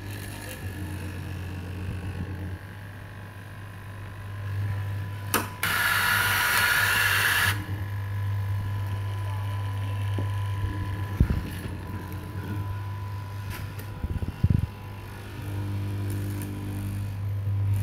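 Straight-knife cloth cutting machine running with a steady low hum as its vertical blade cuts through a stack of T-shirt fabric. A few sharp knocks and a loud hissing rush lasting about two seconds come through near the middle.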